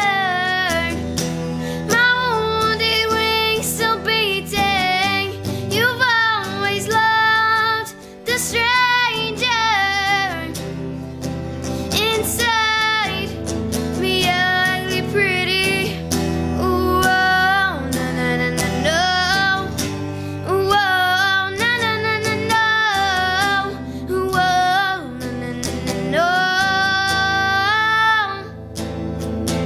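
A young girl singing long held notes with vibrato, probably wordless vocalising, over guitar accompaniment.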